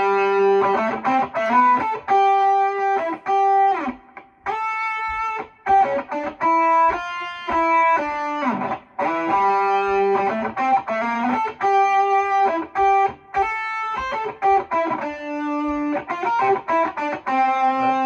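Yamaha SG2000 electric guitar played through a Mesa/Boogie Mark IIB amplifier's lead channel with distortion: a single-note lead line of long sustained notes and quicker runs, with one note sliding down in pitch about halfway through.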